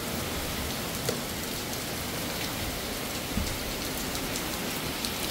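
Steady rain falling on a boat's deck, with scattered drops ticking.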